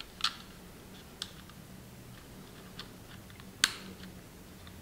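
Faint small plastic clicks and taps as a microSD card is handled and pushed into the card slot of an Eachine E511 foldable drone, with the sharpest click about three and a half seconds in.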